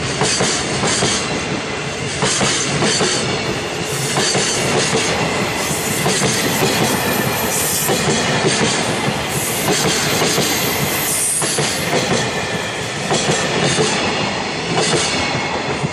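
Loaded Koki container flatcars of a freight train rolling past at close range as the train pulls out, their wheels clattering over the rail joints.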